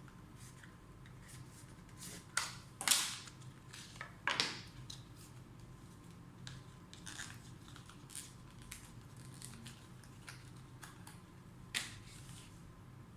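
Packaging being handled and opened by hand: scattered clicks and short crinkling, tearing noises, the loudest bunched around three and four and a half seconds in, with another sharp click near the end.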